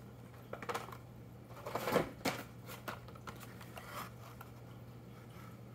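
Hot Wheels blister-card packaging handled: cardboard and plastic blisters rustling and tapping in a few short crackles as one carded car is put down and the next picked up, the loudest about two seconds in. A low steady hum runs underneath.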